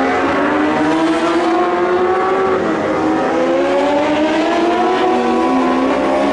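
A racing superbike's engine at high revs as the bike passes through a corner. The pitch dips, then climbs from about halfway as the rider gets back on the throttle, with other bike engines audible underneath.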